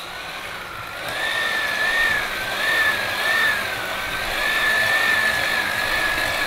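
Electric hand mixer running, its beaters whisking ricotta and whole eggs in a glass bowl: a steady motor whine that wavers slightly in pitch and gets louder about a second in.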